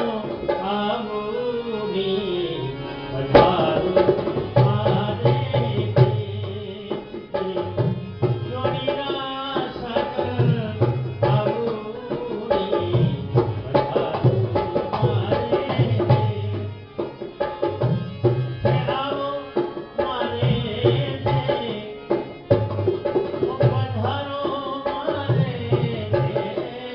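Live Rajasthani folk music: a hand drum keeps a steady rhythm of deep strokes under a wavering melody line.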